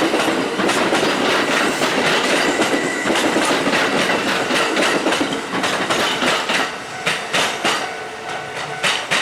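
Kintetsu electric train passing at close range, its wheels clacking over the rail joints in quick runs. The noise eases off near the end as the train draws away.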